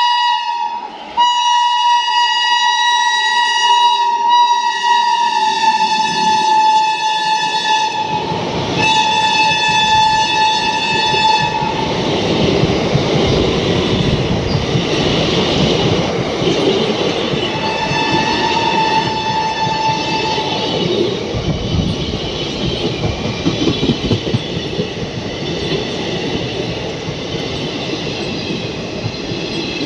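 Indian Railways locomotive horn sounding long blasts, with a short break about a second in and another near 9 s, then a final blast around 18 s. From about 8 s a train runs past with a heavy rumble and wheels clattering over the rail joints.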